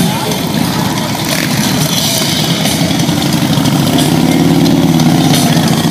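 Several motorcycle engines idling and rolling at low revs, with one engine's note rising and getting louder about four seconds in as it pulls away.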